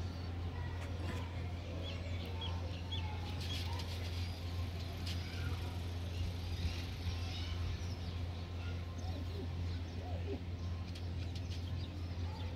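Faint pigeon coos and scattered high bird chirps over a steady low hum, with a few short rustles and clicks.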